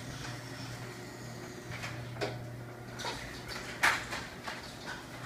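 Old electric garage door opener closing the door: a steady motor hum with scattered clicks and rattles from the door, and a sharp clank a little under four seconds in. The owner calls its sound really old because the door is kind of broken.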